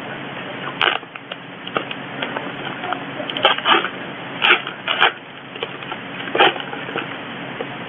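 A mailed package being opened by hand: several short rustles and scrapes of packaging, scattered over the seconds.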